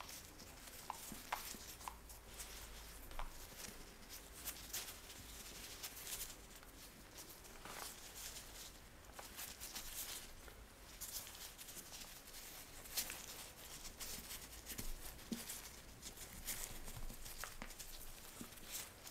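Disposable-gloved hands handling and weaving soft pie-dough strips on a silicone baking mat: faint glove rustles and soft pats and taps of dough, in scattered, irregular little clicks.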